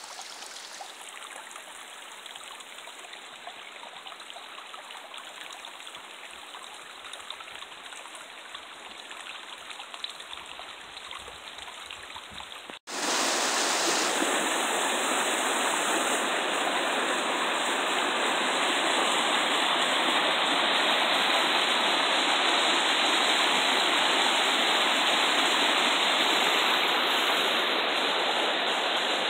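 A shallow rocky stream flowing over stones, a steady rush of water. After a cut about 13 seconds in, the water is much louder and closer.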